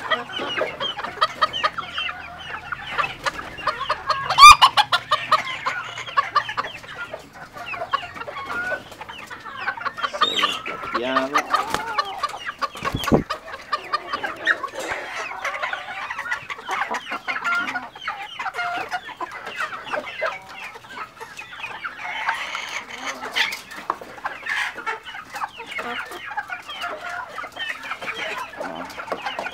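Caged bantam chickens clucking and squawking, with one loud call about four and a half seconds in and a dull knock near the middle.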